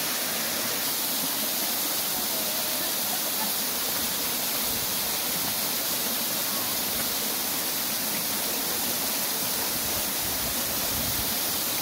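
Steady rushing of running water: an even, unbroken hiss.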